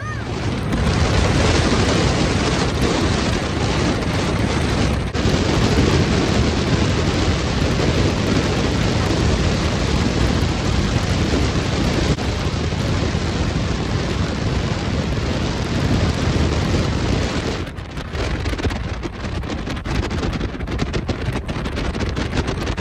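Wind rushing over the microphone of a camera held at the window of a moving vehicle, a steady heavy noise that drops and turns choppier a few seconds before the end.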